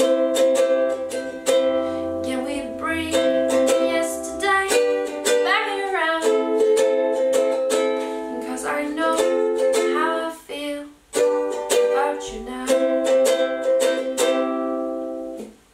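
Soprano-style ukulele strummed in chords while a woman sings along. The playing stops abruptly near the end.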